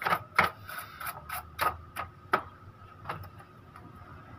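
Irregular sharp plastic clicks and taps as a paintbrush is worked over the gears and roller parts inside an opened inkjet printer, several close together at first, then more spaced out.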